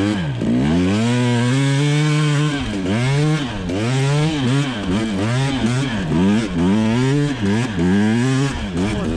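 2020 KTM 300 XC TPI's single-cylinder two-stroke engine revving up and falling back again and again, about once a second, as the throttle is worked on and off.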